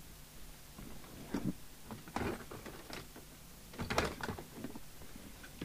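A few knocks and clatters, loudest about four seconds in, as things are handled on a workbench.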